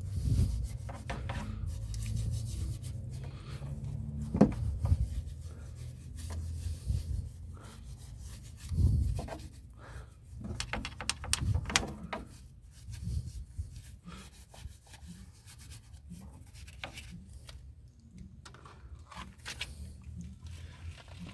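Scrubbing the car's suspension coil spring and wheel well by hand: irregular rubbing and scraping strokes with a few knocks.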